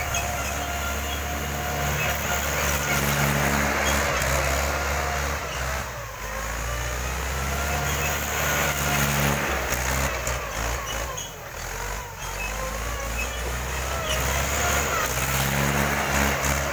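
Mahindra 415 DI tractor's four-cylinder diesel engine running steadily as the tractor drives over a thick layer of paddy straw to thresh the rice by treading. The engine note drops briefly about six seconds in and again around eleven to twelve seconds, then picks up.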